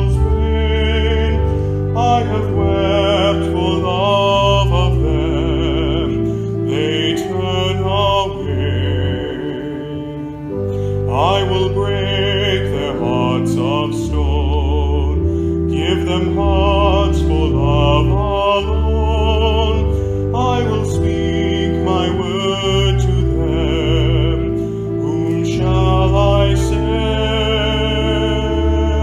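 Slow sung music: a singing voice with wide vibrato over long held accompaniment chords that change every second or two.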